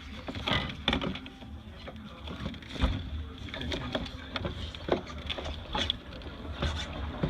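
Irregular clicks and knocks of hand work on a car's in-tank fuel pump assembly, over a steady low rumble.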